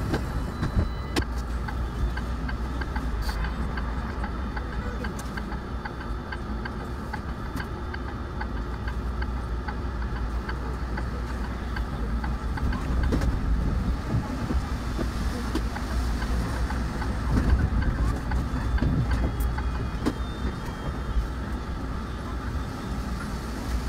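Inside a city bus: its engine running with a steady low hum under the road noise as the bus drives along.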